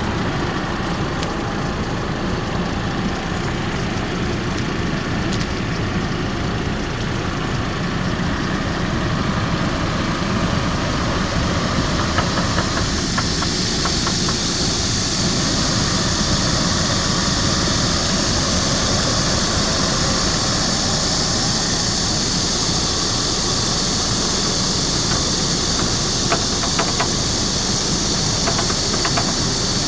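Hummer H3's engine idling steadily. About twelve seconds in a steady high hiss joins it and keeps on.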